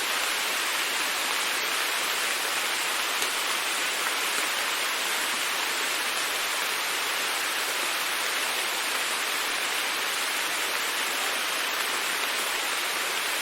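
Steady, even rain: a dense hiss of many drops with no thunder.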